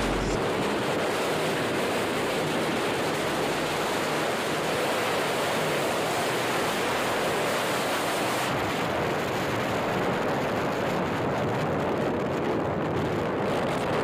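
Steady wind rushing over the microphone of a moving motorcycle, an even hiss with no break.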